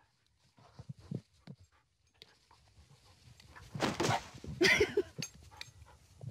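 A dog panting, then a quick run of about five short pitched yelps about four and a half seconds in, just after a brief rustling burst.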